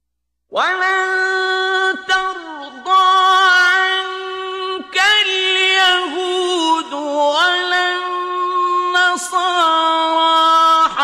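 A male Quran reciter chanting in the melodic mujawwad style, drawing out long held notes that he ornaments and slides in pitch, with short pauses for breath between phrases. The chanting starts about half a second in, after a moment of silence.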